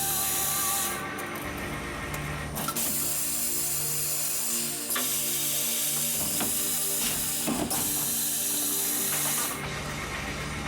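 An automatic CNC wire bending and butt welding machine at work: rapid mechanical clicking and ratcheting, with bursts of hiss that start and stop every couple of seconds and a few sharp clicks, over background music.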